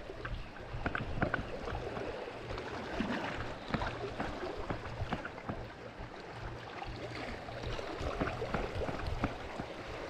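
Seawater washing and gurgling along the shore, with scattered small clicks and knocks throughout.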